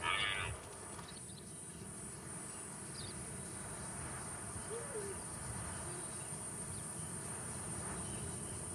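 Steady high-pitched chorus of insects in the evening savanna, with a brief louder noise in the first half-second.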